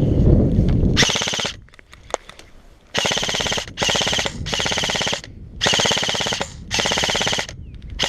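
An airsoft rifle firing full-auto in short bursts: five rapid-fire bursts, each under a second, with a sixth starting at the very end. Before the first burst, about a second of low rumbling noise on the microphone.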